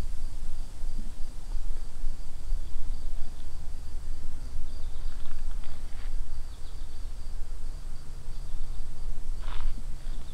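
Woodland ambience: a steady low rumble under a faint, pulsing high insect trill, with a brief bird call near the end.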